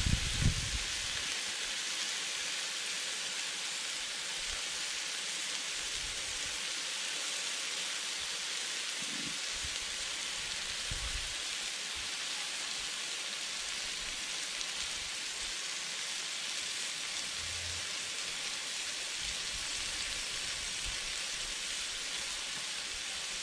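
Marinated steak strips and bell peppers sizzling steadily on a Blackstone flat-top griddle, giving off an even hiss. A couple of low bumps come right at the start.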